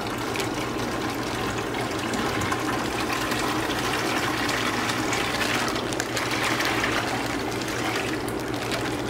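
Water pouring in a steady trickle from a plastic fish-shipping bag through a mesh aquarium net into a plastic bucket.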